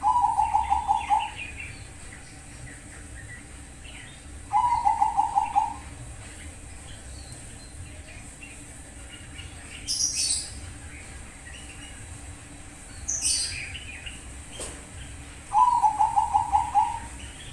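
Bangkok-strain zebra dove (perkutut) singing: three loud trilled phrases of fast staccato notes, each about a second long, at the start, about four and a half seconds in, and near the end. Two brief high chirps from other birds come in between, at about ten and thirteen seconds.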